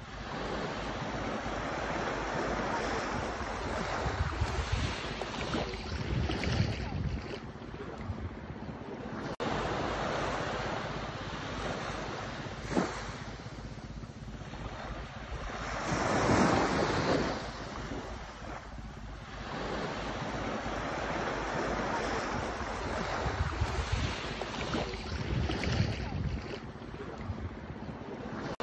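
Small waves lapping and washing up a sandy beach, swelling and receding slowly, with the loudest wash about halfway through. Wind rumbles on the microphone now and then.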